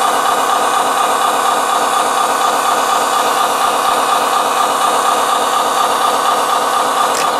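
Scale diesel engine sound from an RC Scania 6x6 dump truck, running steadily at idle through the model's small speaker while the tipper bed rises. A brief faint click near the end.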